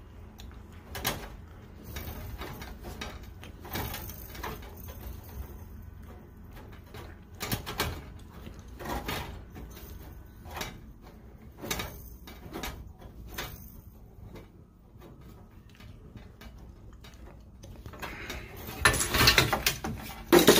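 Small tubing cutter being turned around a copper refrigerant line, its cutting wheel giving irregular clicking scrapes about once a second. Near the end comes a louder burst of clatter as the cut goes through and the cutter comes off.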